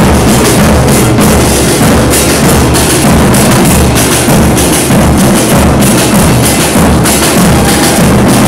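Murga percussion troupe playing loudly: bass drums with cymbals mounted on top (bombos con platillo) pound a dense, fast, syncopated beat.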